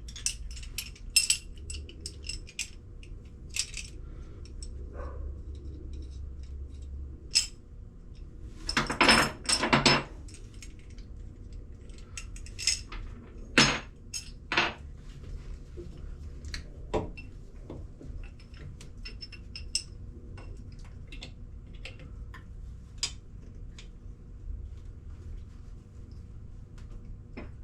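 Metal clinks and clanks of V-band clamp brackets being handled and fitted onto a marine diesel's raw water pump, with a short burst of rattling about nine seconds in and two sharp knocks a few seconds later, over a steady low hum.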